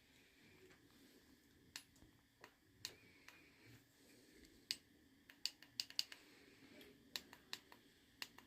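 Faint, irregular clicks and taps from handling a small object, about fifteen of them and closer together in the second half, over near silence.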